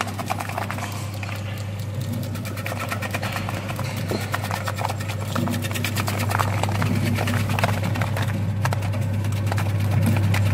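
Electric onion slicing machine (TSQC-7) running, its motor humming steadily while its blades rapidly clatter through onions, cutting them into rings.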